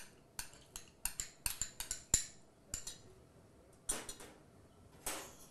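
Metal spoon knocking and scraping against a small glass bowl, a quick run of sharp clinks as mayonnaise is tapped out of it. A few more clinks follow, then two duller knocks and scrapes later on.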